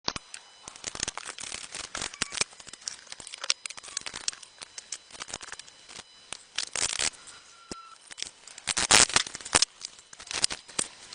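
Irregular scraping, clicking and rustling of hands and tools working on parts, with a louder scratchy burst about nine seconds in.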